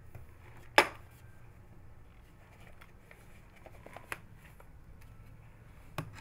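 A cat pawing at a stack of paper envelopes on a counter: soft rustling and scraping of paper, with a sharp knock about a second in and lighter taps around four and six seconds.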